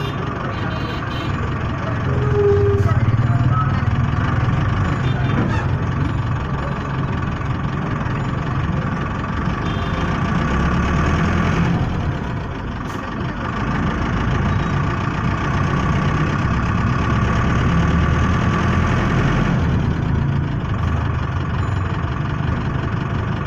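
Engine and road noise heard from a moving vehicle in city traffic: a steady low rumble with a steady whine over it that fades near the end.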